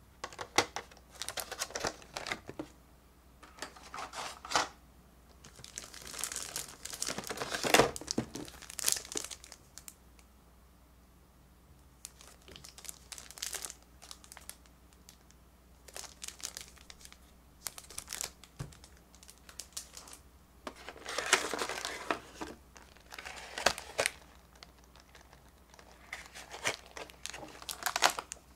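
Clear plastic blister trays and plastic film wrapping crinkling and rustling as they are handled, in irregular bursts of a second or two with short quiet pauses between.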